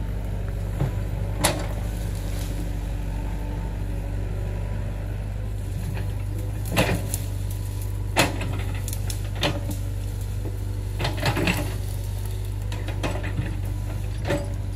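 Excavator engine running at a steady drone, with short sharp knocks now and then, about eight in all, as the machine works.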